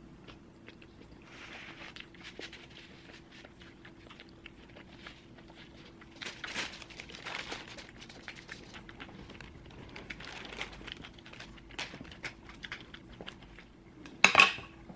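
Clear plastic bag crinkling and rustling as it is handled and stuffed with food wrappers, with scattered light clicks. A brief, loud clatter near the end.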